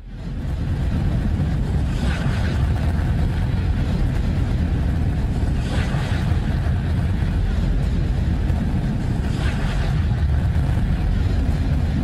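Spacecraft radio emissions converted to sound, presented as the sound of Neptune's moon Triton. A steady, deep rumbling noise fades in at the start, with a hiss that swells up and falls back about every three to four seconds.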